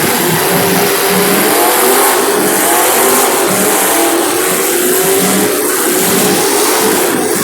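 Demolition derby cars' engines revving hard together, a continuous loud roar whose pitch wavers up and down.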